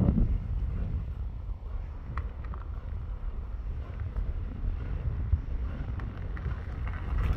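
Wind buffeting the phone's microphone: a steady, uneven low rumble, with a few faint clicks about two seconds in.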